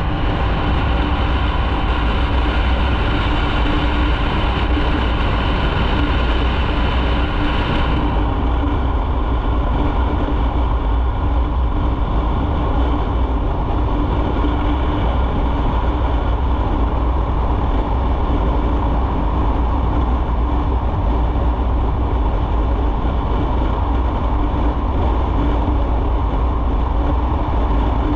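Motorcycle running steadily at cruising speed, its engine drone mixed with a constant rush of wind and road noise.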